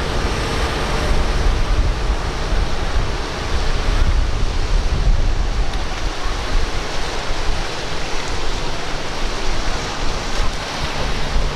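Steady rush of ocean surf breaking at an inlet, with wind buffeting the microphone in uneven low rumbles.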